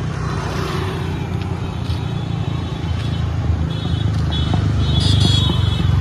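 Road traffic: the engine and tyre noise of cars on a city road, growing louder as a car comes close near the end. A high, pulsing tone runs through the second half.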